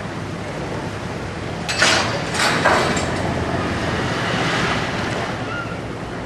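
Berthed car ferry's engine running with its propeller churning the water at the stern: a steady low rumble. About two seconds in, a few brief, louder rushing, clattering sounds rise over it.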